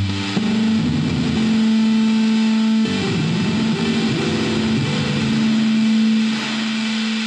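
Droning, distorted music: long held notes that shift in pitch every second or so, over a constant hiss.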